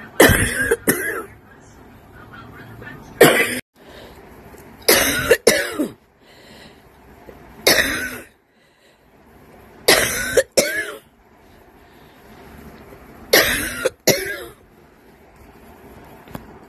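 A woman coughing in about six fits spaced two to three seconds apart, several made of two or three quick coughs. It is a dry cough, which she calls an allergic cough.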